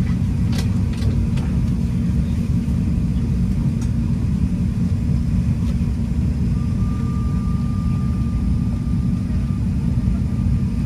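Steady low rumbling drone inside an Airbus A350-900 airliner cabin, with a few faint clicks near the start and a thin, steady high whine that comes in about halfway through.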